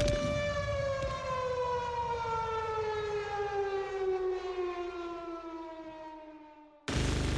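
A siren winding down, its wail with many overtones sliding slowly lower in pitch and fading away. Near the end it is cut off by a sudden burst of loud static.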